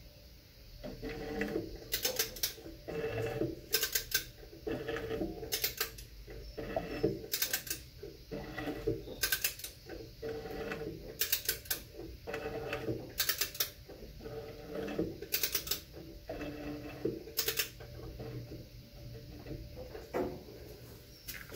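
Crankshaft of a Butler Performance 467 Pontiac engine being turned over slowly by hand, spark plugs out, with a ratcheting wrench. A short run of rapid clicks comes about every two seconds on each back stroke, with lower scraping and working noise in between.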